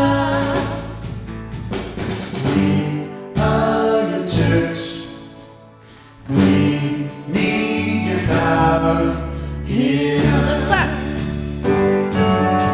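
Live church worship band playing a congregational song, with sustained chords, bass and some singing. It drops away almost to a pause about six seconds in, then comes back in full.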